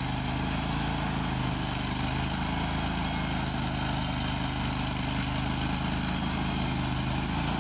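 Portable band sawmill engine running steadily at an even pitch.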